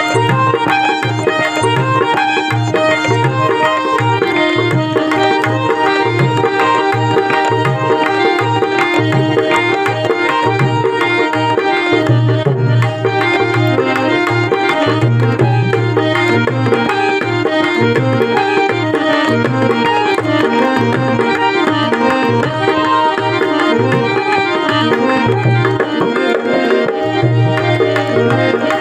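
Instrumental interlude of a Marwari devotional folk song: a tabla-like hand drum keeps a steady rhythm under a melody line played on a keyed instrument.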